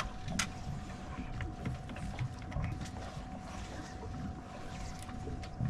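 Wind rumbling on the microphone aboard a small fishing boat, with scattered light clicks and knocks and a faint steady hum.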